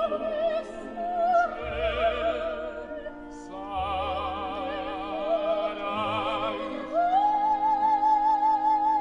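Background music: an operatic singer in Italian with wide vibrato over orchestral accompaniment. A long high note is held over the last couple of seconds.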